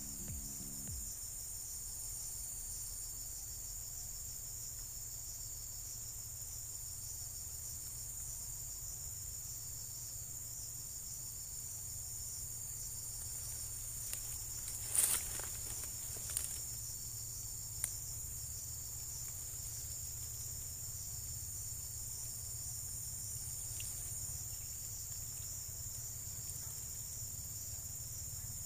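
Steady high-pitched chorus of insects, with a low rumble underneath and a few short clicks about halfway through.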